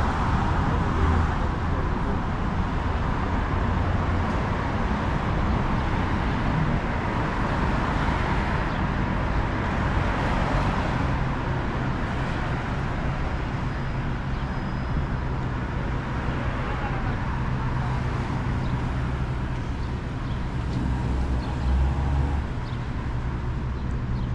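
City street traffic: cars and trucks passing with a continuous hum of engines and tyres, which swells several times as vehicles go by, most strongly near the end.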